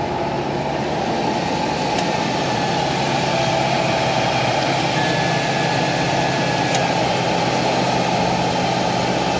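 Ford F-250 pickup's engine idling steadily with the hood open, running smoothly now that new MAF and oxygen sensors have cured its lean-running codes (P0171/P0174).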